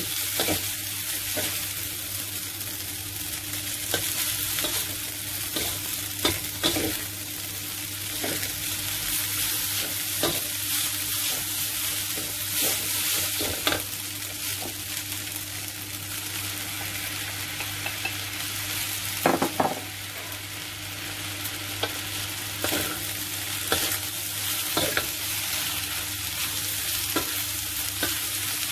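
Stir-frying noodles in a metal wok: a steady sizzle with irregular scraping and knocking of a metal spatula and chopsticks against the pan, with a cluster of louder knocks a little past the middle.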